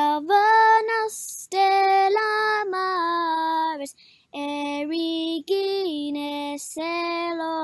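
A girl singing a Latin chant solo and unaccompanied, in held notes that step up and down between pitches. Short breaths fall between the phrases.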